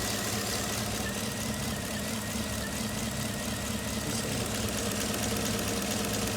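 2015 Chevrolet Camaro engine idling unevenly with one cylinder dead. The rough idle is a misfire on cylinder 6, traced to a failed fuel injector.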